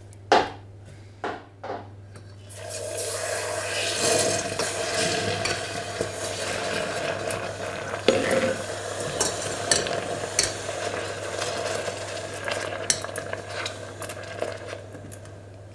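A metal spoon taps against a stainless steel pot, then about two and a half seconds in a sustained sizzling hiss starts as water mixed with starch hits the hot caramelized sugar, slowly easing off. The spoon clinks and scrapes against the pot as it stirs.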